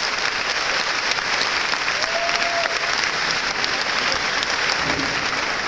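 Large audience applauding steadily, with a short call from one voice about two seconds in.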